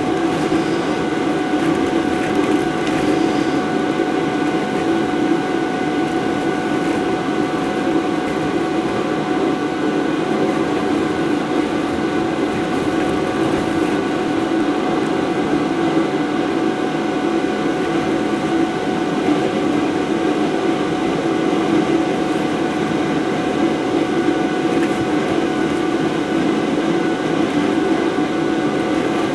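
Electric blower fan keeping an inflatable bounce house inflated, running steadily with a constant whine over a loud rushing hum.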